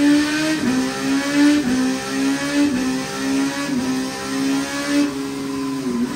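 2005 Yamaha YZF-R6's inline-four engine, fitted with Lextek headers and silencer, running on a rolling-road dyno. Its pitch holds steady and dips briefly about once a second, then comes straight back up.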